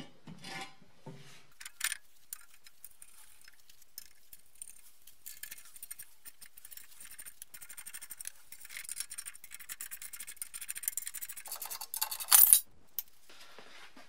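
Metal hand tool working on a rusty rear wheel hub: light metallic clicks and scraping that grow into a dense run of rapid ticking, then a louder metallic clatter twice near the end.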